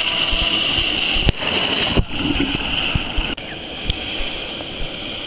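Sea water washing and splashing around a camera held at the surface, with a steady hiss and occasional sharp knocks against the housing.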